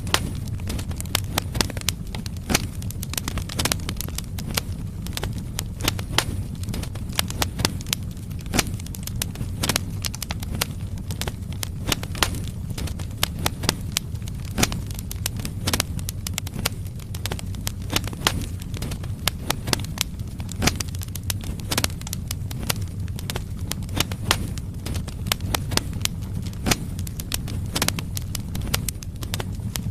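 Firewood burning in a fireplace: frequent irregular crackles and sharp pops over a steady low rumble.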